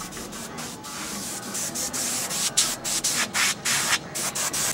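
Airbrush spraying paint onto a caricature, hissing in short bursts one after another with brief pauses between, the bursts getting stronger after the first second or so.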